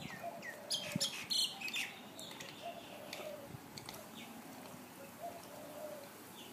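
Birds chirping, with several short falling calls in the first two seconds. Under them is faint slurping and splashing from a Zodiac Baracuda MX8 suction pool cleaner drawing air at the waterline, which is what makes it pull back down the wall.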